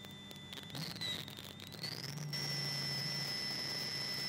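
Holden Commodore rally car driving at low road speed, its engine a low drone under a steady high-pitched whine that glides up in pitch about two seconds in and then holds.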